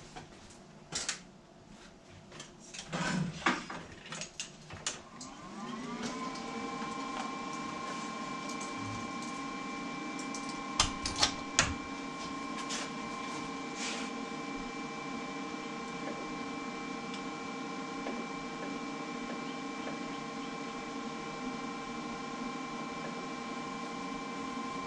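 Metal clanks and knocks. About five seconds in, an electric motor starts up, its pitch rising briefly and then holding as a steady hum, with a few sharp clanks a few seconds later.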